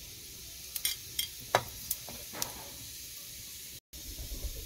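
Cumin seeds sizzling in hot cooking oil, a steady faint hiss broken by several sharp crackles in the first half, then a brief dropout near the end.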